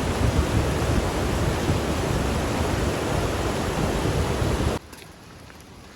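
Loud, steady rush of a waterfall's falling water, which cuts off suddenly near the end, leaving a much quieter background.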